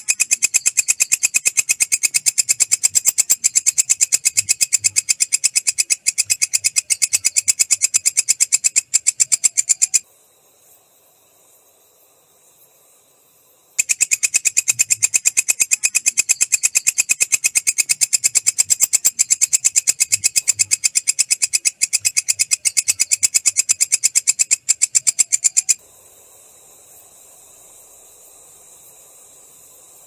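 Walang kecek katydid stridulating: a fast, even train of ticks. It stops for about four seconds about ten seconds in, starts again, and stops about four seconds before the end, leaving a faint hiss.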